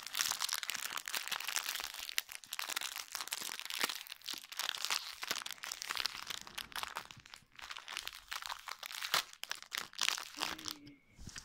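Plastic toy packaging crinkling and crunching with a dense, irregular crackle as a packet is torn open and rummaged through.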